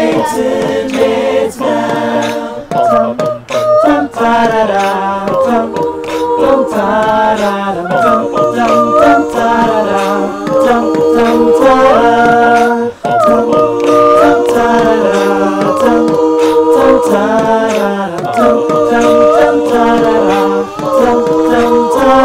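A choir singing a cappella: several voices in harmony, holding notes and moving between them in phrases.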